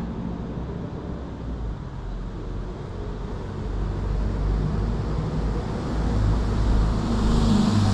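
Low rumble of passing motor traffic, building up and loudest near the end, with an engine hum coming through toward the close.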